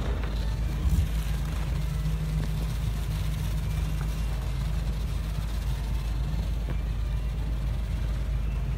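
Insulation blowing machine running with a steady low drone as it feeds loose-fill fiberglass through the hose into a netted wall cavity. A brief thump about a second in.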